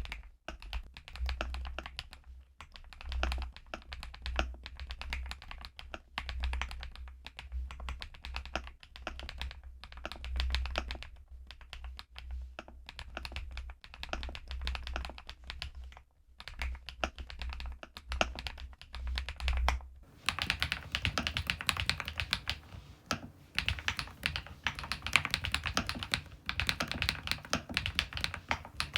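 Continuous typing on a YUNZII B68 mechanical keyboard with a plastic case and MOG-profile keycaps, a steady run of key clacks. About two-thirds of the way through the typing turns faster and brighter.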